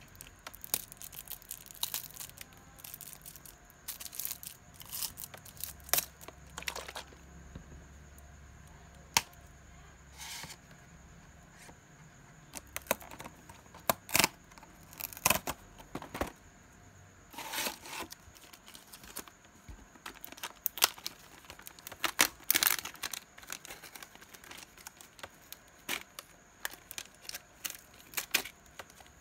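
Cardboard snack box and plastic packaging being opened by hand: scattered short tearing, crinkling and clicking sounds of paperboard and plastic, ending with clear plastic film being peeled off a tray.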